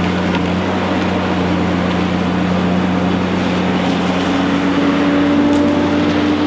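Komatsu tracked forestry machine's diesel engine and hydraulics running steadily under load while its felling head saws through a standing tree trunk. A second, higher hum comes in about three and a half seconds in and rises slightly in pitch.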